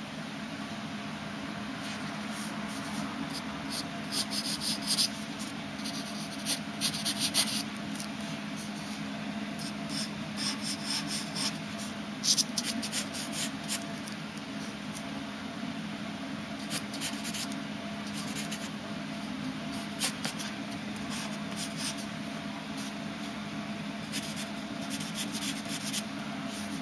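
Wooden graphite pencil scratching across sketch paper, in short bursts of quick strokes with pauses between them, over a steady low hum.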